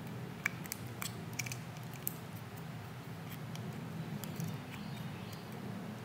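Irregular small clicks and ticks of a pick tool working the terminal pins and locking clips out of a plastic throttle-by-wire harness connector. A steady low hum runs under them.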